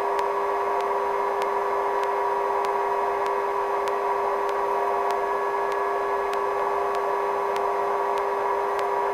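Sikorsky helicopter in flight, its turbine and rotor noise a steady, unchanging drone with a constant hum, thin and lacking bass as heard through the crew's radio intercom.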